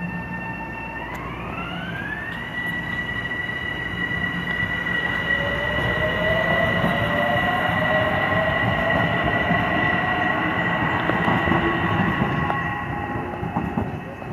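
Metro-North M7 electric multiple-unit train moving past. Its traction motors whine in several steady tones that glide up in pitch about a second in as it picks up speed, over a rumble of wheels on the rails. The rumble is loudest midway and fades near the end as the train pulls away.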